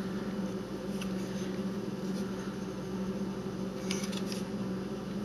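Steady low machine hum in a small room, with a few faint light clicks from a white 3D-printed plastic part being turned in the hands.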